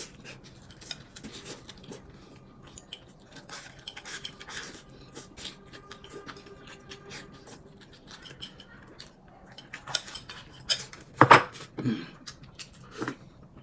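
Chopsticks clicking and scraping against a porcelain bowl while a man eats, with small clinks of tableware. A short "mm" near the end.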